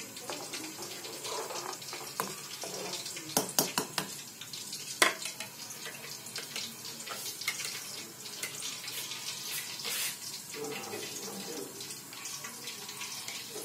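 Pan of milk and vermicelli boiling on a gas stove, a steady bubbling, with a few sharp clicks about three and a half seconds in and a louder knock at about five seconds.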